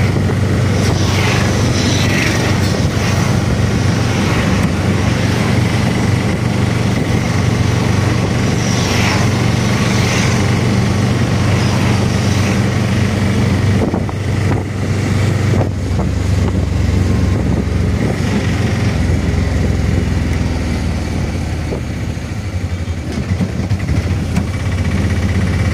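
Engine and road noise of a moving vehicle, heard by a rider: a steady low engine drone under rushing noise, the drone shifting lower about halfway through.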